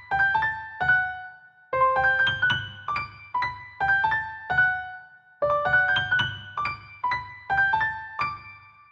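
A phone ringtone: a short melody of quick, piano-like notes that repeats about every four seconds. The last phrase ends on a held note that fades out at the very end.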